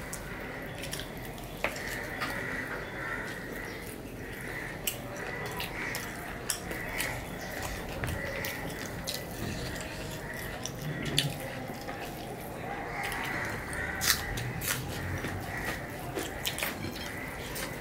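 Two people eating rice and curry by hand: wet, squelching clicks and smacks from fingers mixing rice on plates and from chewing, scattered irregularly over a faint steady hum.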